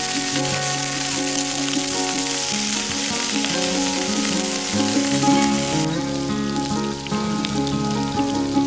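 Tofu cubes sizzling in hot oil in a frying pan, with background music playing over it; the sizzling drops off sharply about six seconds in.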